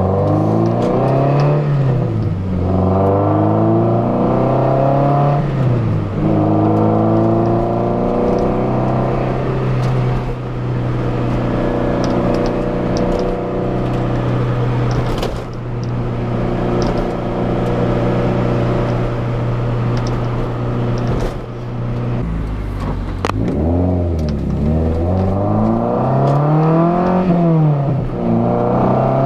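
Toyota MR2 Spyder's mid-mounted 1.8-litre four-cylinder engine heard from inside the cabin while driving. Its pitch climbs and drops at two gear changes in the first few seconds, then holds steady at a cruise. Near the end it falls off, then climbs and falls again.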